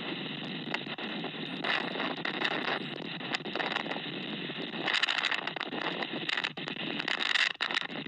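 Storm-force blizzard wind buffeting a security camera's microphone: a steady rushing noise that swells in harder gusts about two, five and seven seconds in, with scattered sharp crackles.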